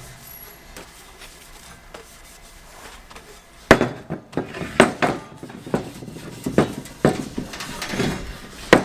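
A run of irregular knocks and clatters of hard objects being handled, starting suddenly about three and a half seconds in, several a second with short ringing tails.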